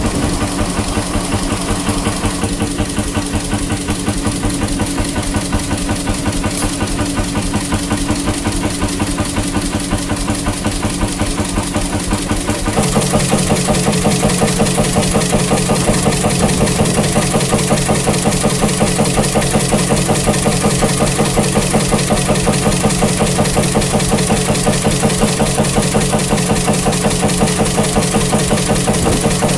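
Stationary hot-bulb engine running with a steady, even beat; the first is a 1934 Beijer of 20 HP. About thirteen seconds in, the sound becomes louder and fuller.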